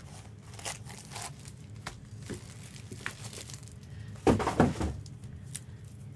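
Light crinkling and rustling of packaging being handled, with scattered small clicks and a louder burst of handling noise a little past four seconds.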